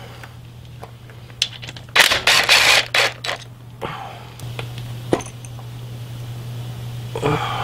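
A cordless DeWalt impact driver hammering in short bursts about two seconds in as it breaks loose and backs out a bolt on the engine's oil filter cover. A few light metallic clicks follow as the bolt and cover are handled.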